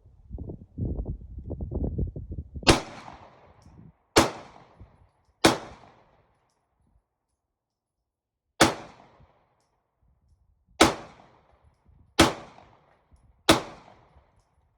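Ruger Security-9 9mm pistol fired seven times in slow, deliberate single shots, spaced about one to three seconds apart. The shots follow a couple of seconds of low rumbling noise.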